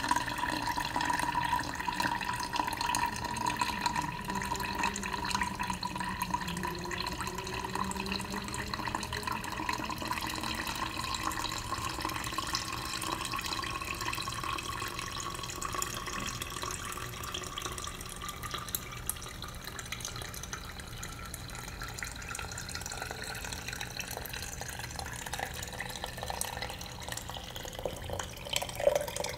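Water pouring steadily from a glass jug into a glass cold-brew coffee pitcher through its metal filter, the ringing of the filling vessel slowly rising in pitch as the pitcher fills.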